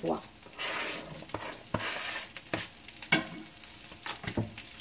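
Fried rice sizzling in a frying pan as it is stir-fried with a spatula, which knocks and scrapes against the pan about six times.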